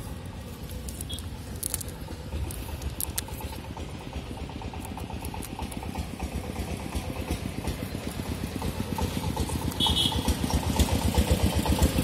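An engine running with an even low throb that grows louder over the last few seconds.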